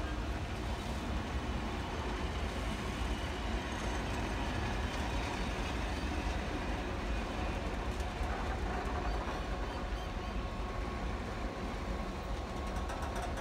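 Heritage passenger carriages rolling slowly past on the track: a steady low rumble of wheels on rails that does not let up.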